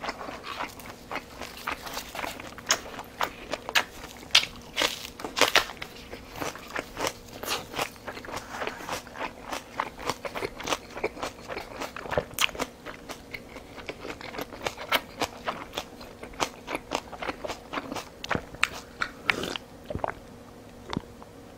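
Close-miked chewing and mouth sounds of a person eating: a dense run of wet clicks, smacks and crunches. Near the end, a sip from a bowl of soup.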